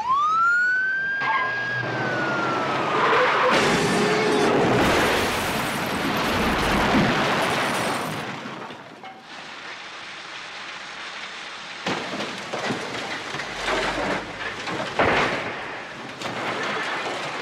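A police car siren winds up at once, holds and sinks away over a few seconds. A loud car crash follows, several seconds of smashing and crunching wreckage, with further crashes of debris about 12 and 15 seconds in.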